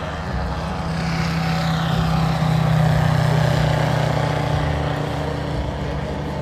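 Petrol engine and propeller of a large RC model airplane in a low flyby: a steady drone that swells to its loudest about three seconds in, with a higher whine falling in pitch as it passes.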